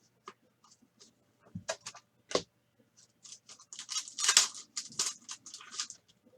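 Sports trading cards being handled: two sharp clicks, then a quick run of scraping and rustling as cards slide against each other.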